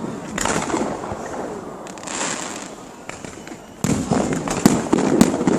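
Fireworks going off: a sharp bang about half a second in with crackling that dies down to a lull, then a sudden dense run of bangs and crackle a little under four seconds in.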